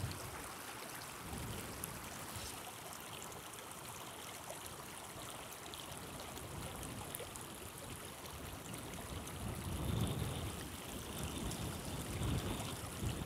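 River water running steadily over a gravel and boulder bed, a gentle, even rush. Around ten seconds in, a few low rumbles of wind on the microphone.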